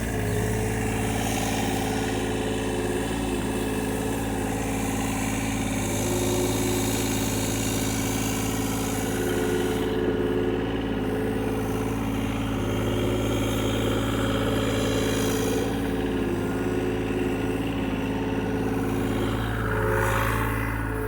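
John Deere excavator's diesel engine running steadily, its pitch wavering slightly now and then as the machine works.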